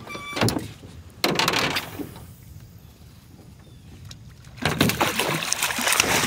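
A hooked fish thrashing at the surface beside a boat, splashing water loudly in the last second and a half, after a couple of brief splashes early on.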